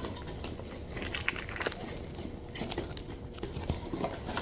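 Soft rustling and a few short clicks from handling a trading card box's contents: booster packs in foil wrappers, card sleeves and cardboard packaging.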